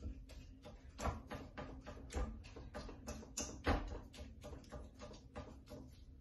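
A fork clicking and scraping against a frying pan while lightly mashing and stirring cooked fava beans: a quick, irregular run of taps, several a second, with a few louder knocks.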